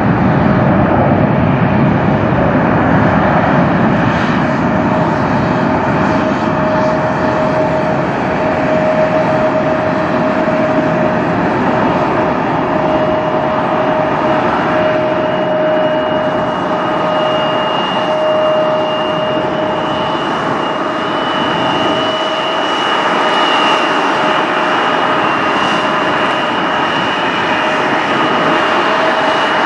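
Airliner jet engines at takeoff thrust during a Boeing 787-9's takeoff roll and lift-off: a steady loud roar with a steady whine, joined about halfway by a higher whine, and the deep rumble thins out near the end as the jet climbs away.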